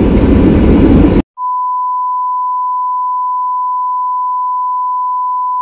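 A single steady, pure electronic beep tone, edited into the soundtrack, starting abruptly a little over a second in after a moment of loud rumbling noise and holding unchanged.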